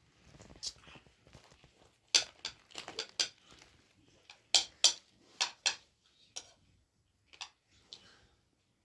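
Spoons and dishes clinking: a series of sharp, short knocks, loudest in a cluster about two seconds in and another around the middle.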